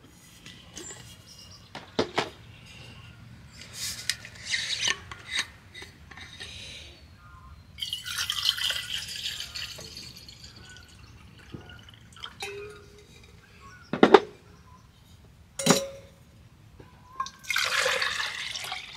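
Liquid poured from a bottle into a cup, twice: once about eight seconds in and again near the end. In between come a few sharp knocks, the loudest about fourteen seconds in, and a second one shortly after.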